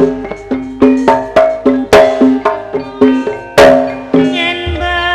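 Javanese gamelan playing tayub dance music: hand-drum strokes and struck bronze keyed instruments ringing out two or three notes a second in a steady cycle. A sustained, wavering singing voice joins near the end.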